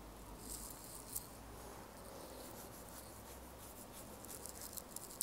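Faint, light ticks and scratches of a stylus tip on a tablet's glass screen, scattered irregularly over low room tone.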